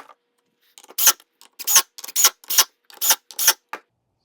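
A quick, irregular run of sharp clicks and knocks, about eight in under three seconds, starting about a second in: hard objects knocked or set down while the wooden sled is being put together.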